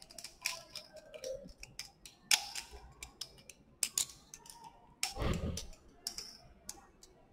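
Scattered light clicks and taps of glassware and lab equipment being handled, with a louder dull thump about five seconds in.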